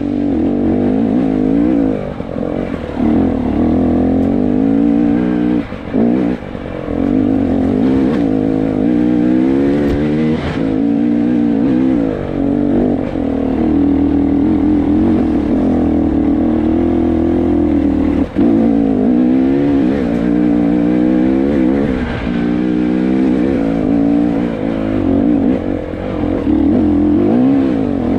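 300 cc two-stroke enduro motorcycle engine revving up and down under changing throttle while climbing a rough dirt trail. The engine briefly drops off a few times when the throttle is shut, around two, six and eighteen seconds in.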